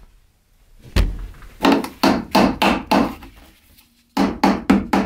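Claw hammer driving the nails of a plastic electrical junction box into a wooden board. There is a single blow about a second in, then a quick run of strikes, a short pause, and another quick run near the end.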